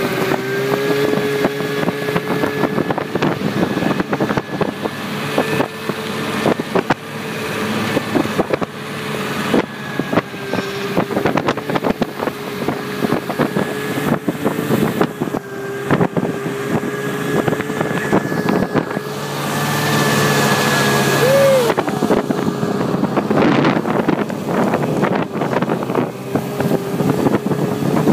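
Snowmobile engine running at a steady, nearly constant pitch while riding, with wind on the microphone and frequent short knocks. The engine gives a short rev about three quarters of the way through.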